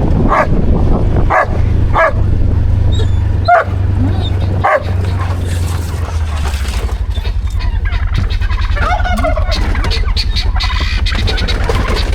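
A dog barks in short calls, about five times in the first five seconds, over a steady low rumble. Fainter fowl calls follow later.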